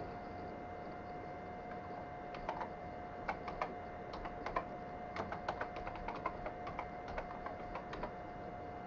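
Keys tapped on a computer keyboard, typing out a web address in an irregular run of keystrokes from about two seconds in, over a steady faint tone.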